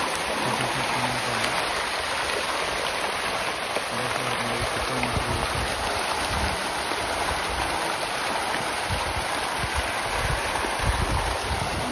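A dense shoal of farmed fish thrashing and splashing at the pond surface, a continuous churning splash. The fish are scrambling for feed thrown onto the water.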